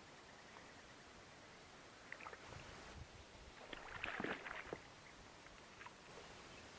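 Water splashing as a large wels catfish is handled at the surface beside a small inflatable boat: a few small splashes about two seconds in, then a louder burst of splashing about four seconds in, over a faint steady hiss.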